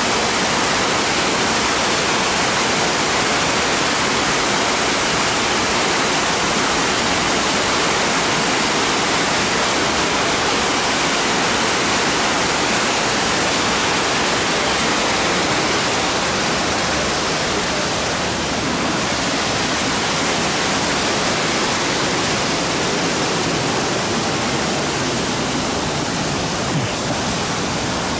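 Small spring-fed waterfall pouring down a rock ledge: a loud, steady rush of falling water that eases slightly in the second half.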